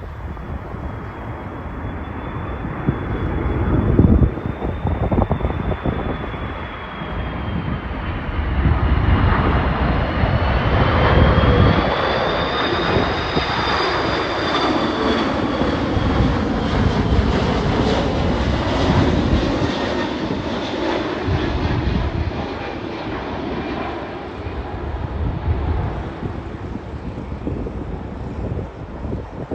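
Qantas Airbus A330-200 jet airliner on landing approach, its engines running with a high fan whine that dips, then rises in pitch as the aircraft passes and fades. Strong wind buffets the microphone throughout.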